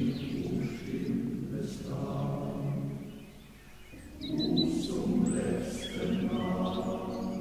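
A choir singing a German folk song in slow, held chords, in two long phrases with a short breath about three seconds in. A few bird chirps sound over the second phrase.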